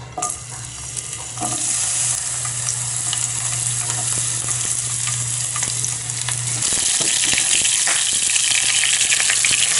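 Sliced garlic sizzling in hot cooking oil in a non-stick frying pan. The sizzle starts about a second in as the garlic goes in and grows louder near the end, with a low hum underneath that stops partway through.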